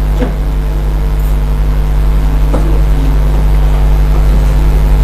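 Steady low electrical hum, with a faint click about a quarter second in and another past two and a half seconds.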